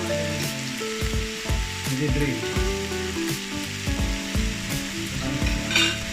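Pork belly (samgyeopsal) sizzling on a hot grill pan, a steady frying hiss, with background music and a steady beat underneath. There is a brief scrape near the end.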